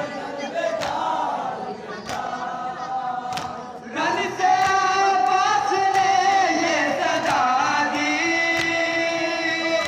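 Group of men chanting a Shia mourning lament (noha) in unison, with rhythmic chest-beating (matam) strikes landing about every 1.3 seconds. The chanting grows louder about four seconds in, with long held notes.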